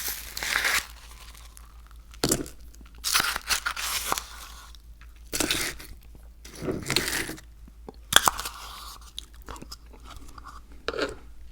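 Close-miked chewing of crunchy food, in separate crunches about every second or so.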